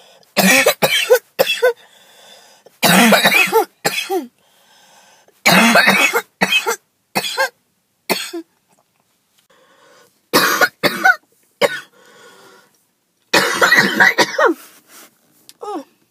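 A woman's hacking cough in about five fits, each a rapid run of several coughs with short pauses between. It is an asthmatic cough that the uploader puts down to skipped breathing treatments.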